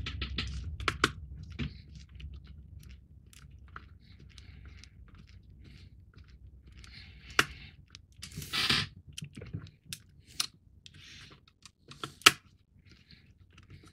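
Small screws being driven by hand with a screwdriver into a model's frame: scattered light clicks and scraping, with a few sharper taps and a short rustle about eight and a half seconds in.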